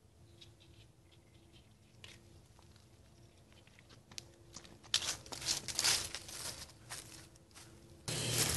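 Footsteps crunching through dry fallen leaves, faint at first and then close and loud from about five seconds in. Just before the end the sound cuts abruptly to a louder, steady rustle.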